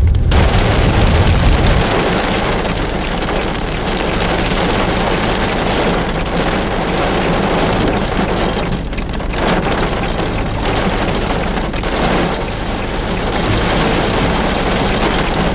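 Heavy rain falling on a vehicle, a dense steady rush of noise that starts abruptly, over a steady low rumble.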